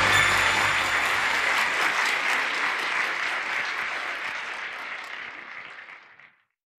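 Audience applauding at the end of a talk, fading out steadily and gone a little over six seconds in.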